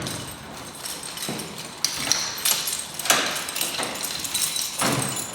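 Irregular knocks, a sharp click and brief rustling swishes of household objects being handled.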